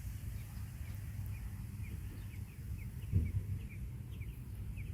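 Faint, quick chirps from robins at the nest, several a second, each a short downward slide, over a steady low rumble, with a soft low bump about three seconds in.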